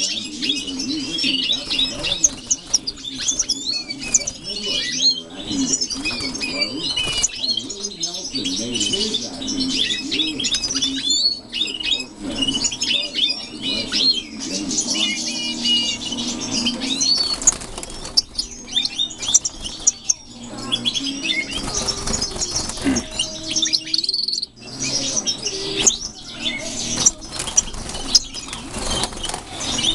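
Caged European goldfinches twittering and chirping in a dense, continuous chorus of quick high notes, with wing flutters as birds flit between perches.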